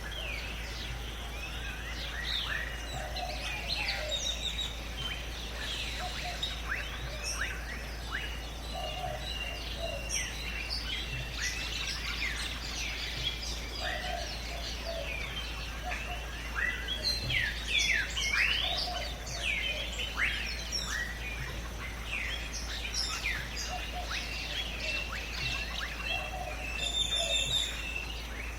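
Jungle ambience of many birds calling and chirping at once, dense overlapping quick whistled notes, with a lower call repeating every few seconds and a faint steady high tone underneath.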